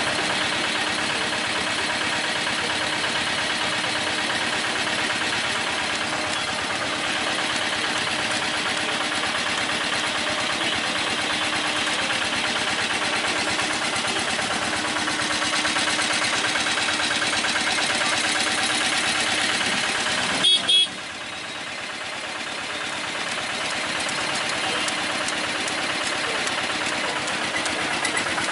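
Dense traffic-jam din: many vehicle horns honking over idling engines and the voices of a crowd. One short, loud horn blast close by about two-thirds of the way through.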